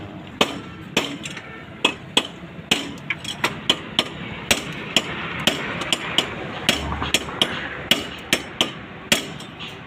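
A hammer striking a metal part of a stripped-down vehicle, with irregular sharp blows of varying strength, about two a second.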